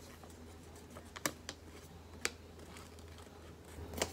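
A sheet of paper being folded and creased by hand, giving a few faint, crisp ticks and crackles spaced irregularly, with a small flurry near the end.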